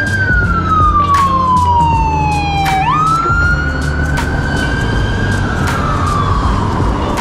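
Emergency vehicle siren wailing on a city street, its pitch sliding slowly down for about three seconds, jumping back up, then rising and falling again, over a low rumble.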